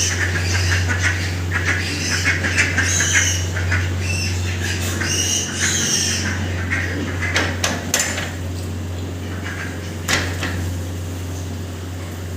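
Pigs squealing in a rapid run of short, high calls for the first half, then a few sharp knocks, over a steady low hum.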